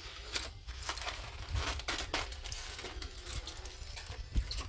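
Aluminium foil crinkling in irregular crackles as a crimped foil cover is pulled open over a baking pan.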